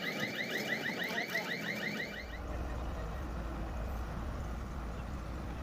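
Rapid electronic chirping alarm, about eight identical chirps a second, that stops about two seconds in; then a steady low rumble.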